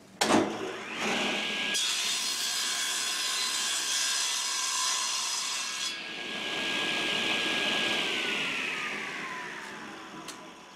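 Table saw switched on with a click, its motor whining up to speed, then the blade cutting through a wooden blank for about four seconds. The cut ends abruptly, the blade runs free, and it spins down after switch-off with a falling whine.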